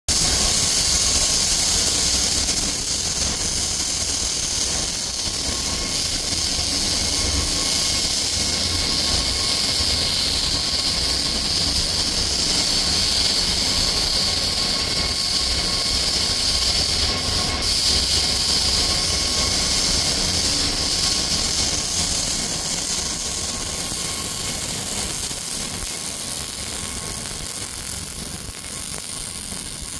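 MIG (wire-fed gas metal arc) welding arc from a Megmeet welding machine, burning steadily without a break as a bead is laid. It eases slightly near the end.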